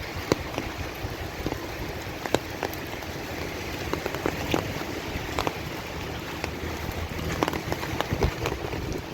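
Steady rain falling, an even hiss with many close drops ticking irregularly.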